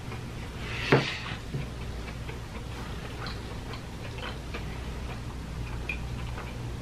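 Steady low room hum with scattered faint clicks from eating fried food at the table, and one sharp knock about a second in.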